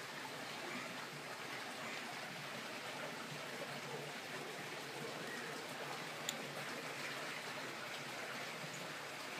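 Steady rush of running water, with one sharp click about six seconds in.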